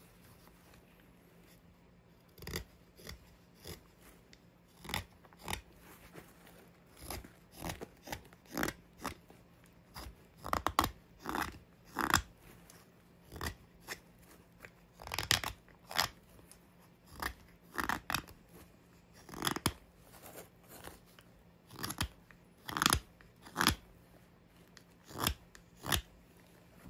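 Mora 106 carving knife slicing shavings from an oak spoon blank: a long series of short crisp cuts, roughly one a second and sometimes in quick pairs, starting about two and a half seconds in.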